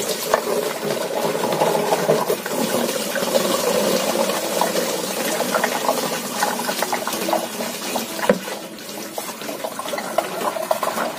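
Green liquid pouring out of two upturned glass bottles through plastic funnels into plastic jerrycans, splashing and glugging; one bottle is swirled so it drains in a vortex, the quick-pour trick for bottled petrol. A single knock about eight seconds in.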